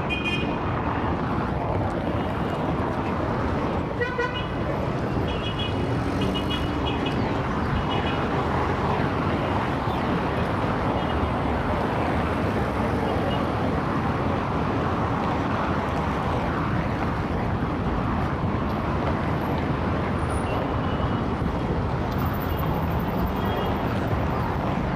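Dense city traffic: a steady wash of engines and tyres from many cars and trucks, with short car-horn toots near the start and again several seconds in.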